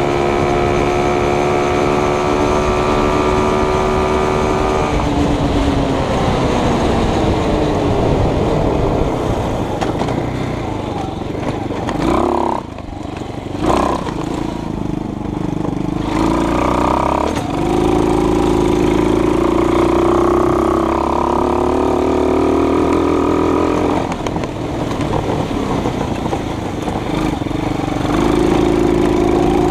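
A vehicle engine running, steady at first, then its pitch falls as it slows, dips briefly about twelve seconds in, and climbs again before settling near the end.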